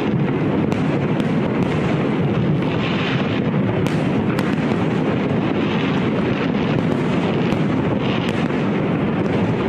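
Fireworks going off: a continuous dense rumble of many overlapping bursts, with scattered sharp cracks and bangs throughout.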